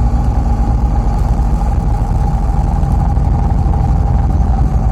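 Inside a MAZ 203.065 city bus on the move: the steady drone of its engine and road rumble, with a constant high whine running over it.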